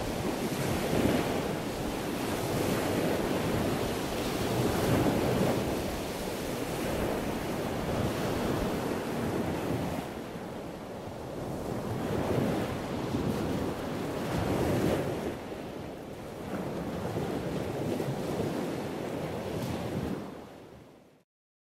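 Wind and sea noise on the microphone, a steady rush that swells and eases every few seconds, fading out near the end.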